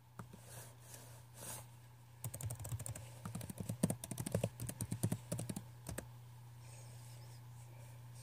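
Typing on a computer keyboard: a quick, irregular run of key clicks starting about two seconds in and lasting about four seconds, over a steady low hum.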